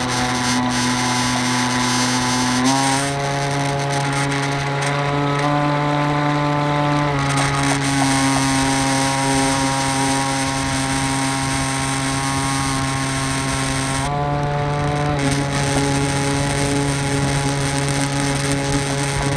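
Onboard electric drive of a radio-controlled Rescue 17 fireboat running under way, a steady motor whine that shifts pitch in steps a few times as the throttle changes, over water rushing past the hull.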